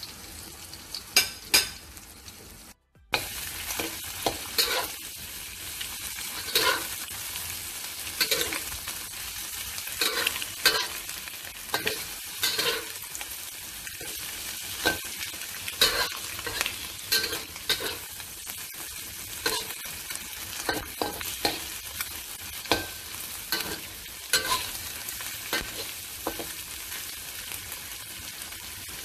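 Shrimp and scrambled egg sizzling in oil in a wok while a spatula stirs and scrapes, striking the pan about once a second. The sound cuts out briefly about three seconds in.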